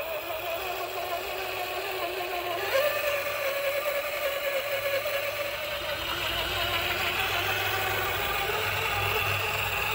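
Electric motor and gear drivetrain of a 1/6-scale RC crawler whining steadily as it drives, the pitch stepping up about three seconds in as the throttle is opened.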